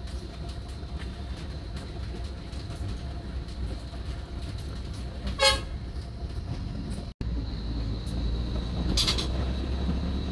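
Steady low rumble of a bus engine heard from inside the passenger cabin, with a short horn toot about five seconds in. After a brief dropout a little past seven seconds the rumble is louder.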